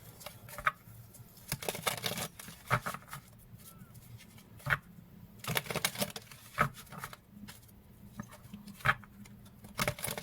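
Tarot and oracle cards being handled: irregular soft taps and rustles of cards shuffled and set down.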